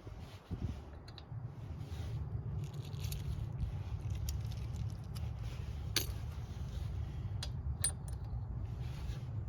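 Small metal clinks and scrapes of tools and parts being handled while a cart wheel is swapped, with a few sharp clinks about six to eight seconds in, over a steady low rumble.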